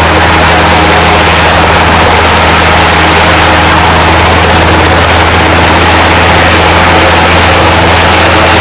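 Mosquito XE kitset microlight helicopter flying overhead: the steady drone of its engine and rotors, holding an even pitch throughout.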